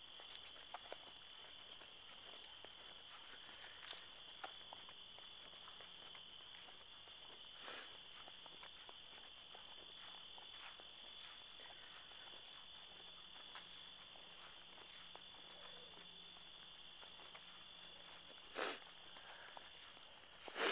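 Insects chirping outdoors: a steady high buzz with a regular pulsed chirp about two to three times a second and a fainter trill above it. Faint footsteps on grass tick through it, with one louder thump near the end.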